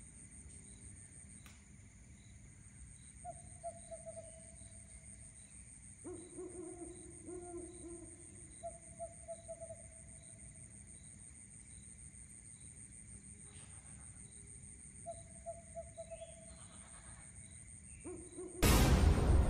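Night ambience: a steady high-pitched insect drone with a faint chirp about twice a second, and a few short trilling animal calls. Near the end a sudden loud burst of noise cuts in and stays loud.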